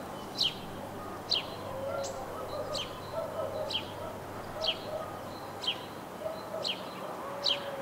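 A bird chirping over and over, about once a second, each chirp a quick high note that drops in pitch. Fainter, lower wavering calls sound in between, over a steady outdoor background.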